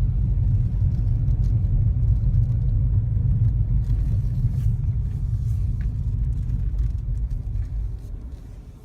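Steady low rumble of a car being driven: engine and road noise, dropping away near the end.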